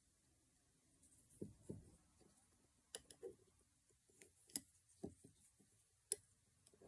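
Faint, irregular clicks and ticks of a metal-tipped loom hook against the plastic pegs of a 12-peg round knitting loom as yarn loops are lifted over the pegs.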